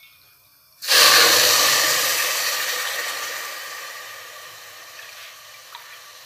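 Water poured from a cup into a steel cooking pot over sugar. A sudden loud rush of splashing starts about a second in and slowly fades away.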